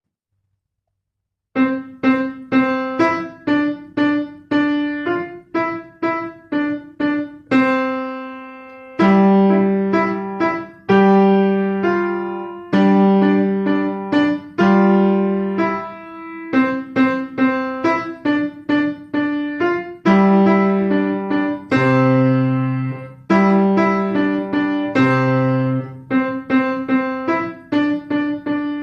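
Piano playing short, bouncy staccato quarter notes, broken up by a few longer held lower notes. The playing starts about a second and a half in.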